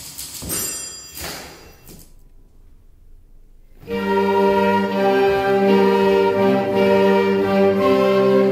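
Typewriter clicks and a struck desk bell ringing die away, leaving a short quiet gap. About four seconds in, a youth orchestra of strings and winds comes in with loud held chords.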